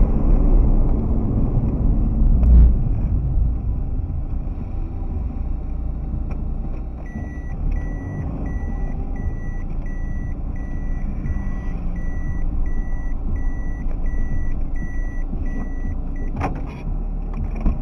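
Low, steady rumble of a moving motorcycle's engine and wind, with a thump about two and a half seconds in. From about seven seconds in until shortly before the end, a high electronic beep repeats about twice a second.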